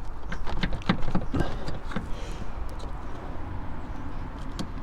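Short sharp plastic clicks and knocks of a Toyota Corolla Verso's tail-light bulb holder being wriggled against its retaining tabs. They come thick in the first two seconds, then sparser.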